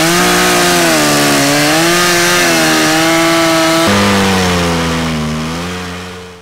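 Echo gas chainsaw running at high revs while cutting through a log, its pitch dipping and rising as the chain bites into the wood. The sound shifts abruptly about four seconds in, then fades out near the end.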